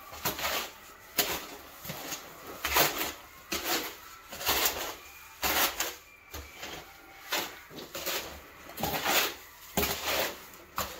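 A shovel or trowel scraping and slapping through thick mortar in repeated, irregular strokes, about one to two a second: the mortar being mixed and worked to a peanut-butter consistency.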